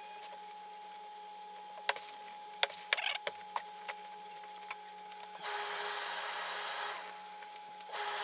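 Tailor's steam iron hissing in two steady bursts of about a second and a half each, in the second half, while it presses wool suit trousers. Before them come a few soft knocks and cloth rustles as the trouser leg is handled and laid flat.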